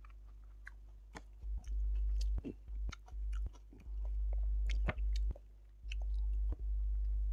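A person chewing food eaten by hand, with wet clicks and lip smacks. Under it a deep low rumble switches on and off several times and is the loudest sound.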